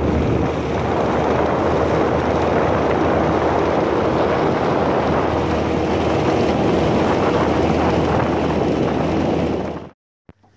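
Small fishing boat's motor running steadily under way, with wind and water rushing past the microphone. The sound cuts off suddenly near the end.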